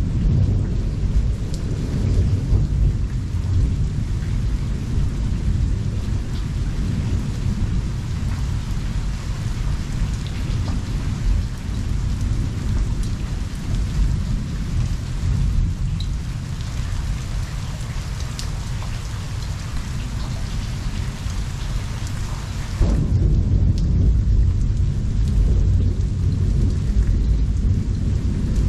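Thunderstorm: steady rain falling, under a deep rolling thunder that rumbles almost without a break. A fresh, louder peal of thunder breaks in suddenly about three-quarters of the way through.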